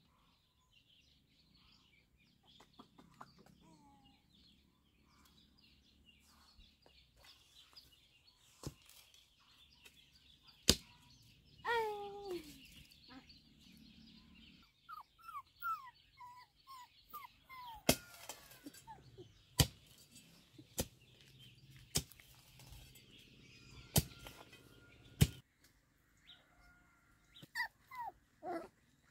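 Chickens clucking and squawking in short falling calls, with birds chirping. Sharp knocks come every second or two in the second half.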